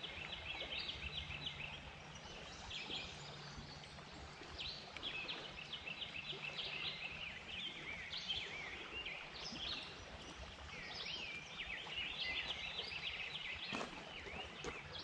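Outdoor birdsong: several birds chirping and trilling in quick repeated high phrases over a faint steady background hiss, with one sharp click near the end.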